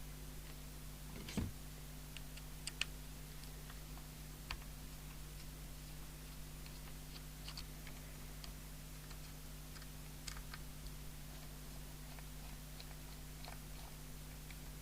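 Scattered small clicks and taps of a CB hand microphone's case being handled and unscrewed, with one louder knock about a second and a half in, over a steady low hum.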